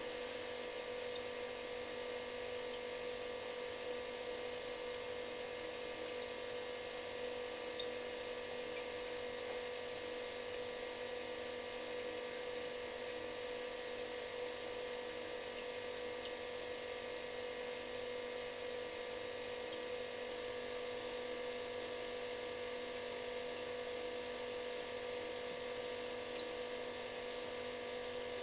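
Refrigerator running: a steady hum with one strong pitched tone and several fainter ones, over an even hiss.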